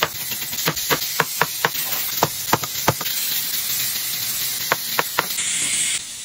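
A chef's knife slicing a carrot on a plastic cutting board: quick sharp knocks, about three a second, then a few more around five seconds in, over a steady hiss that drops away near the end.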